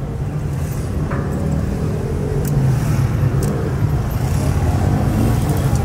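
Distant fireworks: a continuous low rumble of overlapping bursts, with a few faint cracks.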